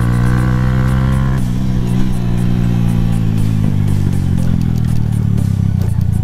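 Suzuki GS150 SE's single-cylinder four-stroke engine running at a steady cruising speed on a dirt track. From about four seconds in the note gets rougher and more uneven.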